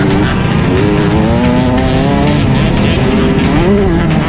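Youth motocross bike engine revving hard and climbing in pitch as the rider accelerates. It dips briefly near the end, then climbs again, with rushing wind noise underneath.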